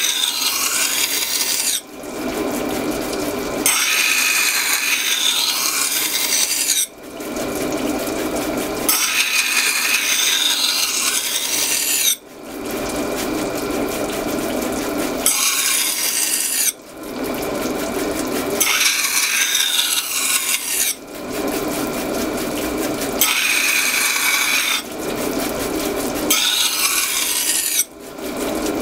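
Deba knife blade being ground against a large spinning wet grinding wheel, a loud rasping scrape of steel on stone. It comes in stretches of a few seconds, broken by short quieter gaps.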